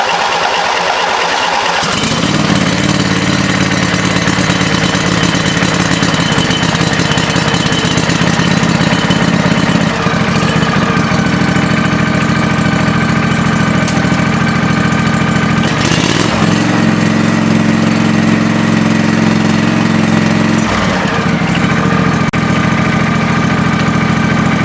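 John Deere Sabre lawn tractor engine cold-started at half throttle with the choke on. The starter whines briefly, the engine catches about two seconds in and then runs steadily on choke, its note shifting slightly a few times.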